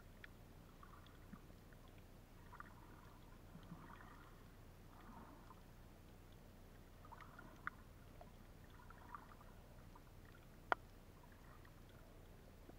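Faint, muffled underwater sound heard through a camera's waterproof housing: a low hiss with scattered soft clicks and swishes of moving water, and one sharper click near the end.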